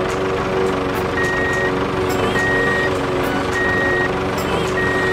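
Heavy vehicle's reversing alarm beeping at a steady pace, four single-tone beeps about a second apart, over a steady engine hum.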